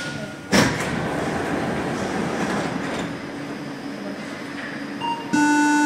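Alstom NS-93 metro train standing at a platform: a sudden loud burst of noise about half a second in, fading slowly over several seconds. Near the end a steady electronic tone comes on.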